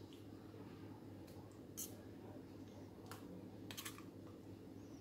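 A few faint, scattered clicks and scrapes of a steel spoon against a steel bowl as thick mint chutney is spooned out, over a low steady hum.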